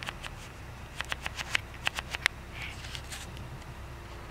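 Dry leaf litter and twigs crackling underfoot, a quick run of sharp snaps and crunches about a second in.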